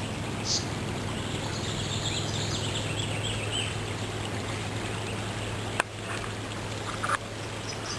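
Creek water flowing steadily, with a few short bird chirps above it and a steady low hum underneath.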